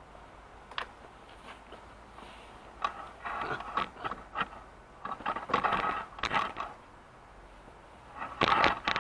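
Clicking and scraping of an ignition coil and its rubber boot being tugged and twisted in the spark plug well, the boot stuck fast: a single click about a second in, then bursts of clicks and scrapes from about three to seven seconds and again near the end.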